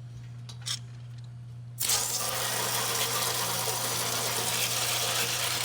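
A power washer cuts in suddenly about two seconds in and sprays with a loud, steady hiss of high-pressure water. Before it there is only a low steady hum and one click.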